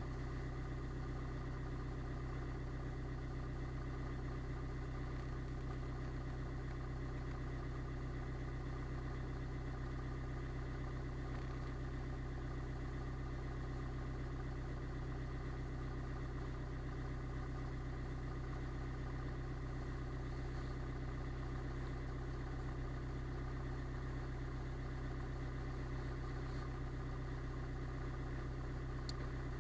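Car engine idling steadily, heard from inside the cabin, with one faint click near the end.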